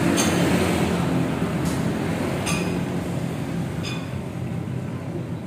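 A few sharp metallic clinks of a hand tool on a Honda PCX 160's stock exhaust muffler as its bolts are tightened. They come over a steady low hum.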